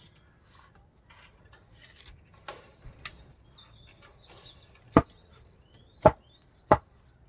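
A timber 2x4 post being knocked into place: a few light knocks, then three loud, sharp strikes on wood in the last couple of seconds, about a second apart.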